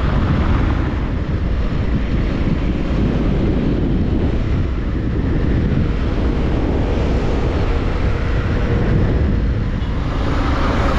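Motorcycle riding along at steady speed, its engine running under heavy wind buffeting on the microphone.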